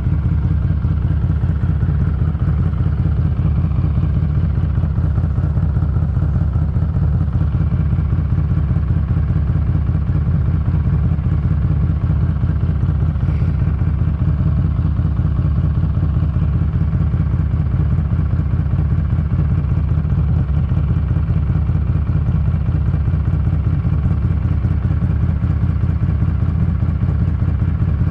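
Harley-Davidson Street 500's V-twin engine running steadily on a ride, heavily buried under wind noise on the camera's exposed built-in microphone.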